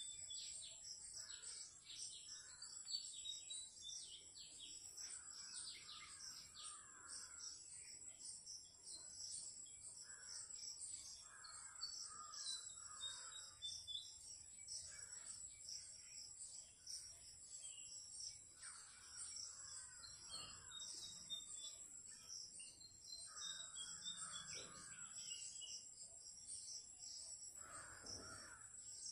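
Faint crows cawing in short series every few seconds, with small birds chirping over a steady high-pitched whine.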